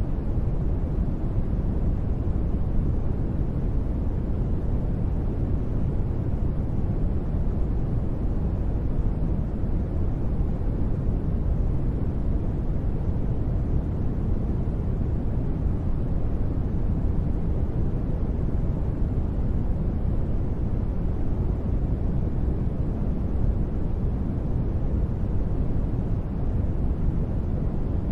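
Steady, continuous sleep noise that never changes, weighted low: a deep, even rumble with little hiss on top.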